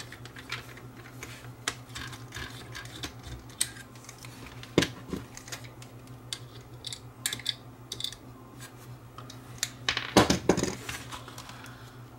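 Scattered small plastic and metal clicks and taps of hands and a screwdriver working on an opened vintage telephone's plastic case and circuit board, with a louder cluster of knocks and clatters about ten seconds in. A faint steady low hum runs underneath.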